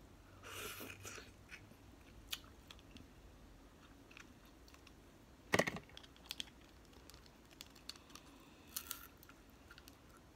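Eating snow crab and shrimp by hand: soft chewing and wet mouth sounds with scattered sharp clicks and cracks of shell being picked and peeled apart, the loudest a single sharp crack about five and a half seconds in.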